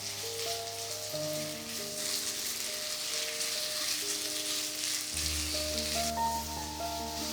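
Food sizzling as it fries in a hot pan, the sizzle strongest in the middle, over background music with held notes.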